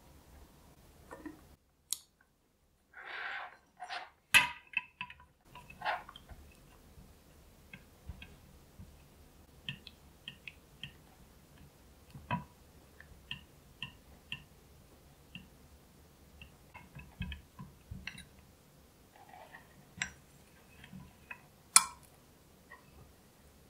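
A spatula stirring melted chocolate in a glass bowl, scraping and tapping against the glass in scattered small clicks. A sharper clink of glass on glass comes about four seconds in and another near the end, as the bowl is lifted off the glass bowl of water beneath it.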